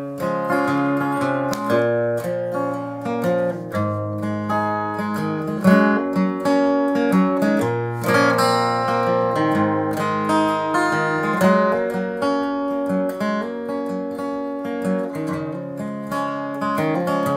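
Solo acoustic guitar playing a fingerpicked and strummed folk-blues introduction, starting abruptly and running on in a steady flow of plucked chord notes.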